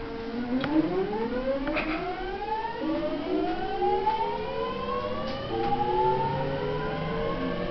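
Traction inverter and motors of a Tokyo Waterfront Area Rapid Transit 70-000 series train (original GTO VVVF control) whining as the train accelerates away from a station. Several tones rise in pitch together, then jump to fresh rising sweeps a few times as the inverter changes modes.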